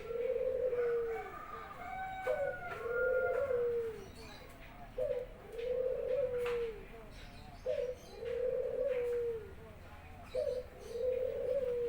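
Pet puter (Barbary dove) cooing over and over, calling freely: about five two-part coos, a short note followed by a longer rolling one, every two to three seconds.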